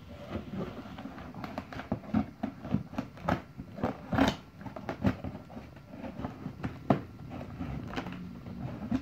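Scissors cutting and tearing along the packing-tape seam of a cardboard shipping box: a run of irregular snips, crackles and scrapes, the sharpest a little past four seconds in.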